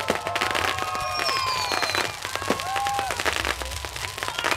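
Fireworks going off in a dense run of rapid crackles and pops, with whistling tones gliding over them, one falling high whistle about a second in.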